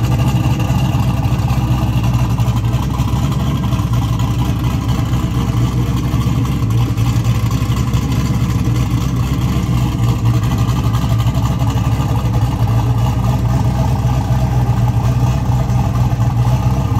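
Single-turbo 5.3 L GM V8 (L33) in an SN95 Mustang idling steadily and loudly through a short, open turbo dump pipe that exits just ahead of the front wheel.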